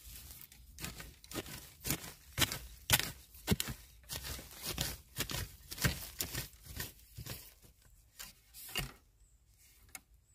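Digging and scraping in damp soil and leaf litter around bamboo shoots: a dozen or so irregular scraping and crunching strokes, thinning out near the end.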